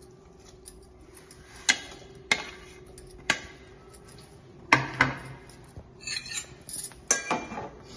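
Scattered clinks and knocks of kitchen dishes, about six sharp ones, as a plate knocks against an aluminium cooking pot and is set down on the counter while grated jaggery is tipped into the pot.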